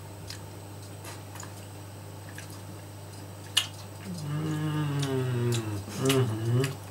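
A man humming an appreciative closed-mouth "mmm" while chewing, starting about four seconds in, falling in pitch and wavering, then a second shorter hum near the end. Before it, only a few faint clicks over a low steady hum.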